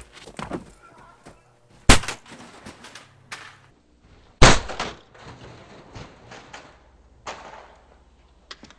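Two sharp, loud bangs about two and a half seconds apart, each trailing off briefly, among smaller knocks and clatter.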